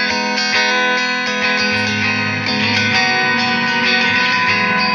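Electric guitar, a capoed Fender Modern Player run through a Line 6 POD HD500X modeller, playing chords steadily with many notes ringing together.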